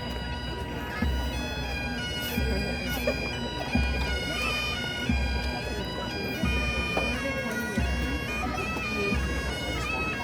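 Bagpipes playing: steady drones under a chanter melody that steps from note to note, with a low thud recurring about every second and a quarter.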